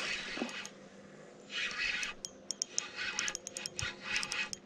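Spinning reel being cranked while a hooked pike is played on the line, with scattered light clicks and three short bursts of hissing, splashing noise.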